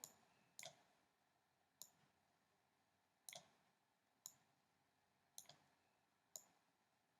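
Faint clicks of a computer mouse, about six, spaced roughly a second apart, as the video is cut on an editing timeline.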